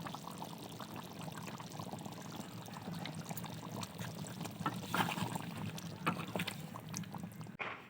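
Thickened chilli chicken gravy in the pan, a steady wet pouring and bubbling sound as the beaten egg goes in, with a few light utensil clicks about five and six seconds in.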